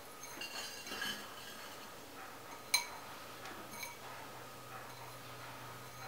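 A glass bowl clinking lightly against a slow cooker's crock as brown sugar is tipped and scraped out of it by hand, with one sharp clink a little under three seconds in and a few softer ones after.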